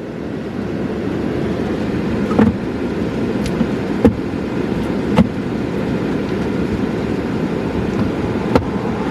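Car driving: steady road and engine noise, with a few sharp knocks about two and a half, four, five and eight and a half seconds in.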